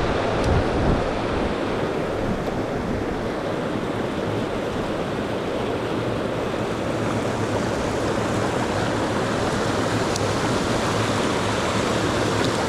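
Mountain stream water rushing over rocks, a steady wash of noise with a couple of faint ticks.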